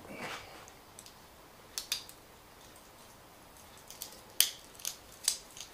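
A few short, sharp metallic clicks, a pair about two seconds in and a quicker run near the end, the loudest among them: a metal wristwatch bracelet being unclasped and taken off.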